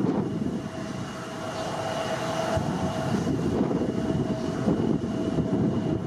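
Boeing 787-8 airliner's Rolls-Royce Trent 1000 turbofans at takeoff thrust as it rotates and lifts off: a steady dense rumble with a thin steady whine above it.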